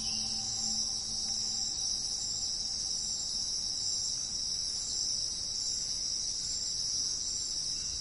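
Steady, high-pitched chirring of an insect chorus, with faint background music dying away in the first two seconds.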